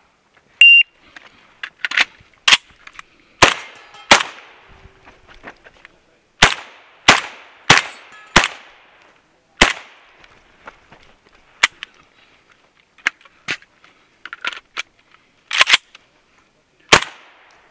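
A shot-timer start beep, followed by a string of 12-gauge shots from an AK-pattern semi-automatic shotgun with a muzzle brake. The shots come in pairs and quick groups of three or four, with short pauses as the shooter moves between positions. The beep is the loudest sound.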